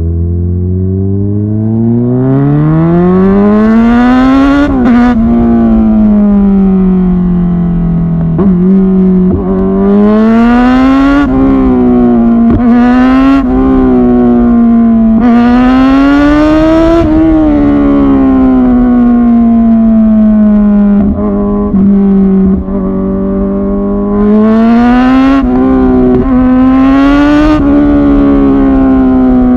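Kawasaki Ninja 1000SX's inline-four running through aftermarket Lextek headers and an Austin Racing end can, its pitch climbing and falling again and again as the engine is revved and let off. A few sharp pops from the exhaust come at some of the drops.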